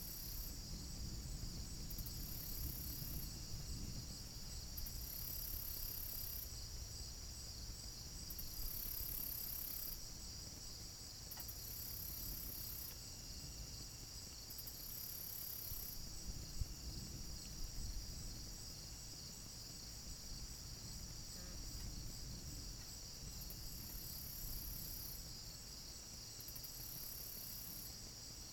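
Night insect chorus: crickets trilling steadily, with a higher, louder insect call that pulses on and off every second or two. A faint low rumble runs underneath.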